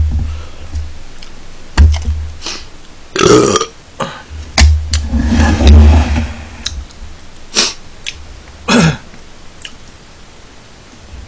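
A man burping after a meal, between clinks of ceramic bowls and plates and dull thumps on the table as the dishes are stacked.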